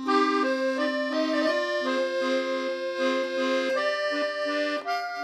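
Background accordion music: held notes and chords that shift about every half second.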